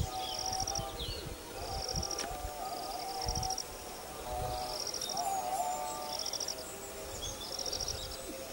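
Birds and insects calling: a short, rapidly pulsed high trill repeats about once a second, with lower warbling bird phrases coming and going several times.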